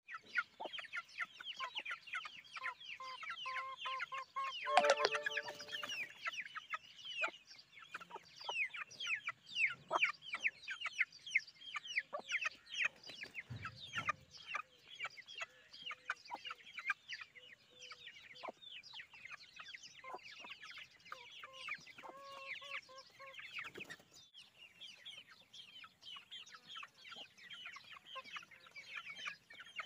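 Aseel chicks peeping rapidly and without pause, short falling chirps while they feed on grain, with an adult chicken's low clucking calls now and then, the loudest about five seconds in.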